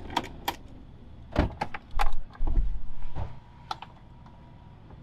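A string of clicks and knocks from a motorhome cab, with a louder rumble for about a second in the middle, as the driver's door is opened and he climbs out.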